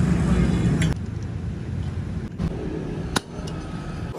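Tractor engine running with a steady low rumble that drops in level about a second in. A single sharp click comes near the end.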